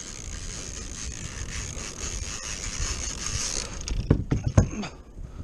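Steady hiss of wind and water around a kayak on open sea, which cuts off about three and a half seconds in, followed by a quick cluster of knocks and bumps from the kayak and its gear.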